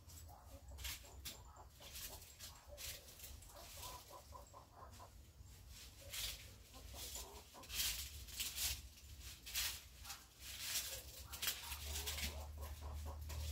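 Free-range hen clucking in short rapid runs of notes, about four seconds in and again near the end, with scattered clicks and rustles.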